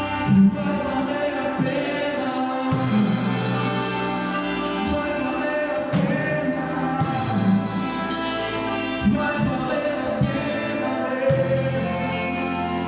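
Live gospel worship music: a band with bass, drums and cymbal strokes, with singing over it.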